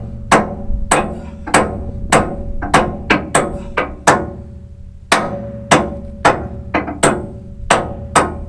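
Hammer blows on steel, driving a tight retaining pin to lock a tooth onto a loader bucket shank. There are about sixteen sharp, ringing strikes at roughly two a second, with a short pause a little past the middle.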